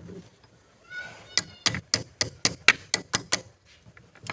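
A wrench tightening a car battery terminal clamp: a short high squeak about a second in, then a quick run of about nine sharp metallic clicks, roughly four a second.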